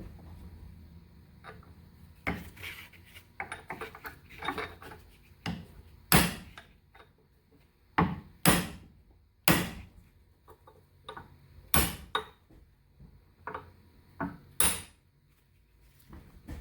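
Hammer blows knocking an old part off a tie rod: about a dozen and a half separate sharp knocks at uneven spacing, the hardest near the middle.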